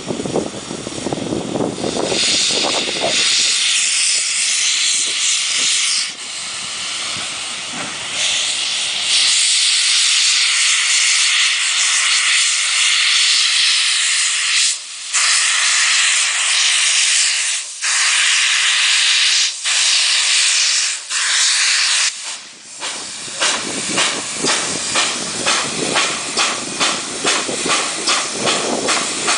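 Steam locomotive blowing off steam in a long, loud hiss, broken by a few brief gaps. About 23 seconds in, it starts off, with rhythmic exhaust chuffs about two a second.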